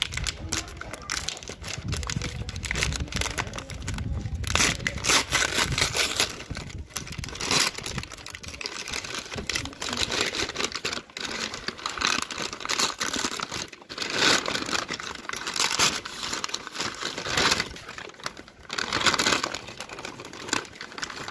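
Brown paper courier bag being crumpled and torn open by hand, in irregular bursts of rustling and tearing.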